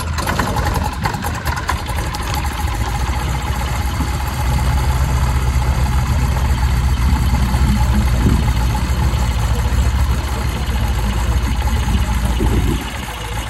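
SeaRey LSX amphibious light aircraft's pusher engine and propeller running on the ground. The running is steady, gets louder about four and a half seconds in, and drops back lower near the end.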